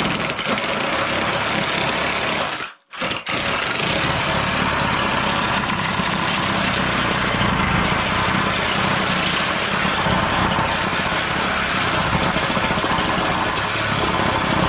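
Power tool motor running steadily and loudly, with a short sudden break about three seconds in.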